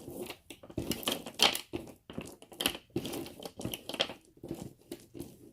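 Irregular crinkling and rustling handling noise as a three-strand acrylic bead necklace is worked free and untangled, with plastic packaging crackling.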